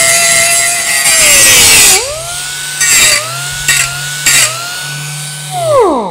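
Chief 4.5-inch pneumatic angle grinder grinding steel: a loud grinding rasp over the motor's whine, the pitch sagging under load. About two seconds in it lifts off and free-spins with a steady whine, briefly scraping the metal three times. Near the end the air is shut off and the whine falls away as the disc spins down.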